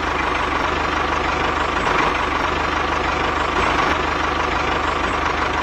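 An engine idling steadily, with a fast, even low throb and a steady whine over it.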